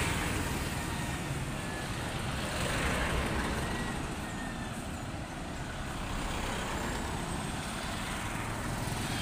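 Road traffic passing close by: motorcycle tricycles, a jeep and a Toyota HiAce van drive past one after another, the engine and tyre noise swelling as each goes by, at the start, about three seconds in and near the end.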